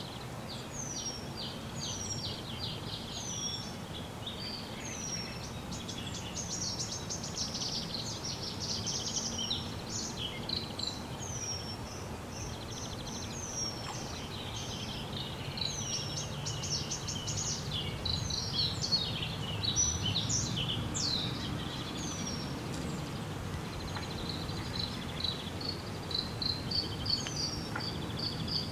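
Small birds chirping and calling continuously: many short, high falling notes and quick trills, over steady low background noise.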